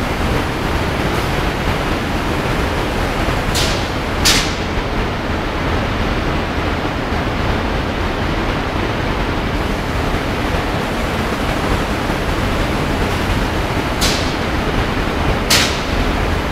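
Airless paint spraying: a steady rushing noise, broken by short sharp hisses, two about four seconds in and two near the end.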